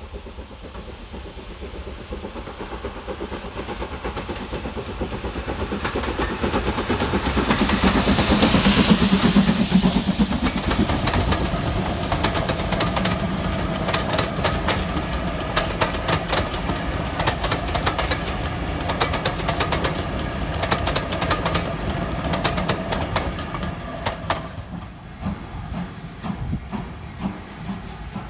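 Steam locomotive passing with its train, building to its loudest about nine seconds in, then the coaches rolling by with their wheels clicking in a steady rhythm over the rail joints. Near the end the sound drops to a quieter, slower train.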